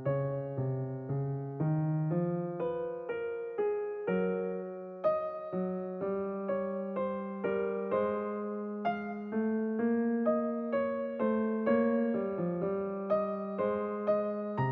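Background music: a gentle electric piano melody played note by note at a steady, even pulse.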